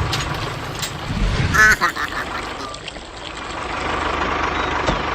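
A small motor running steadily with a fixed whine. It fades for a couple of seconds in the middle and then comes back. A short, nasal, honk-like call sounds about a second and a half in.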